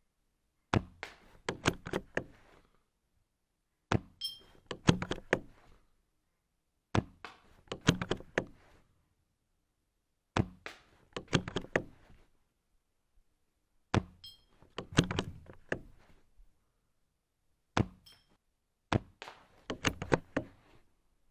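HPA-powered Silverback SRS bolt-action airsoft sniper rifle being cycled and fired over and over. There are seven clusters of sharp clicks and knocks, each a second or two long and spaced a few seconds apart.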